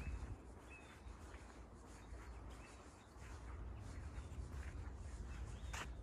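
Faint outdoor ambience in light drizzle: scattered drips and ticks, with a few short bird chirps in the first second and a low rumble underneath. A sharp tap sounds near the end.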